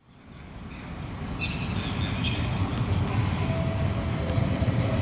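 Frecciarossa high-speed electric train running in along the platform, a steady low rumble that fades in from silence and grows louder. Short high wheel squeals come about one and a half to two and a half seconds in.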